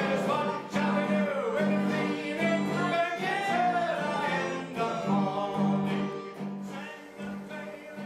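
Small band playing a song on accordion, melodica, electric guitar and a small strummed string instrument, with a voice singing a wavering melody over a steady strummed beat.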